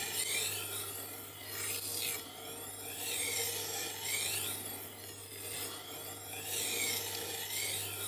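Tormek T-1's fine-grit diamond wheel grinding a chef's knife edge as the blade is drawn back and forth in the angle guide. The scraping swells and fades about once a second, with each pass over a steady low motor hum.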